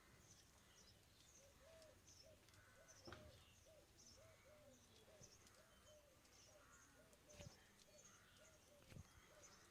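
Faint background birds: one bird repeating a short call about twice a second, with fainter high chirps, and a few soft knocks.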